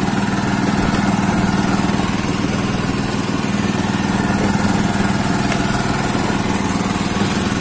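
Small single-cylinder gasoline engine running steadily at constant speed, driving the hookah air compressor that supplies the divers' air hoses.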